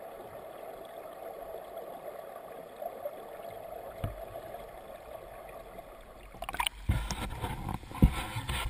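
Steady rushing of flowing stream water heard underwater through the camera. About six and a half seconds in, the camera is pulled up out of the water with splashing and several sharp knocks of handling.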